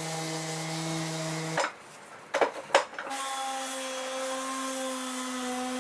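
TACKLIFE random orbital sander running on wood with a steady hum. About a second and a half in it breaks off, a few sharp knocks follow, and it runs again at a higher pitch.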